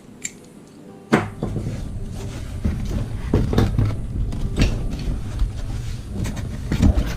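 A cardboard shipping box being opened and its contents handled: a sharp knock about a second in, then repeated knocks and rustling of packaging.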